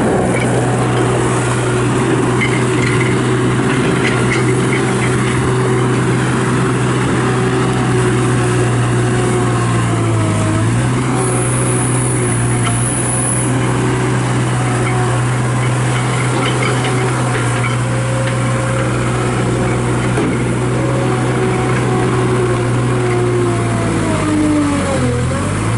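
Turbo diesel engine of a John Deere 250 skid steer loader running steadily at working speed, its pitch sagging briefly about ten seconds in and again near the end.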